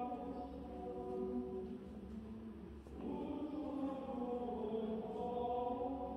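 A choir chanting slow, long-held notes in chords, with a short break about halfway through before a new phrase begins.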